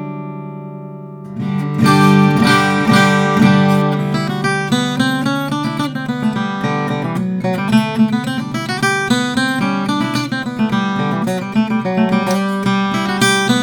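Martin 00 12-fret custom acoustic guitar with a birdseye maple back being played: a chord rings out and fades, then about a second in a fresh strum starts a flowing run of chords and single notes.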